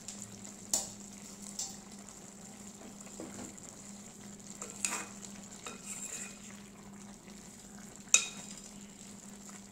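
A spoon gently stirring nearly cooked vegetables in a metal pot on the stove, with a few sharp clicks of the spoon against the pot, the loudest about eight seconds in.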